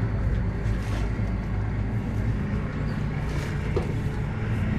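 Passenger ferry's engine running with a steady low drone as the boat comes alongside the pier, with a second, higher hum joining about halfway through.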